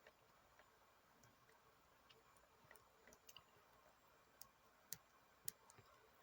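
Near silence with a few faint, scattered clicks, the clearest ones in the second half.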